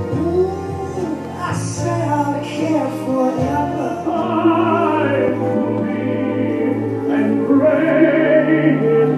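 Background music with a singing voice in an operatic style, over a steady bass line.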